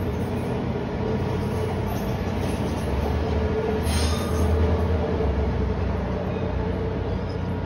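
AirTrain JFK driverless people-mover cars running on the elevated guideway, two trains passing each other. It is a steady rumble that grows louder around the middle as they cross, with a brief hiss about four seconds in.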